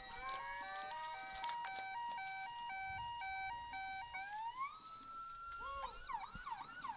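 Police siren going through its tones: a stepped two-tone hi-lo pattern with rising sweeps over it, then about four seconds in a long rising wail, then quick yelping chirps near the end before it cuts off.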